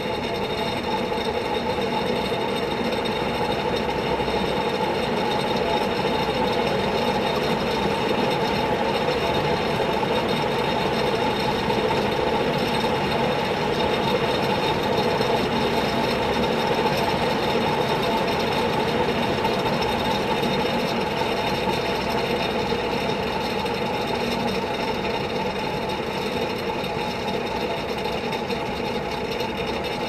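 Vintage NF industrial ceiling fan running on high speed on a solid-state speed control: a steady motor hum and whir of the blades.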